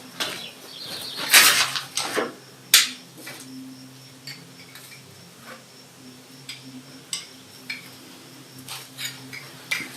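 Scattered hard clinks and knocks of metal objects being handled: a few louder knocks in the first three seconds, then lighter ticks and taps, over a faint steady hum.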